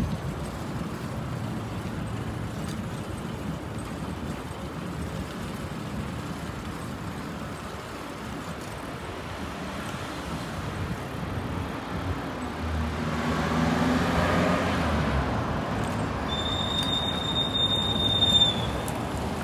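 Street traffic noise with a car engine passing by, loudest about two-thirds of the way in. Near the end comes a steady high-pitched squeal lasting about two seconds.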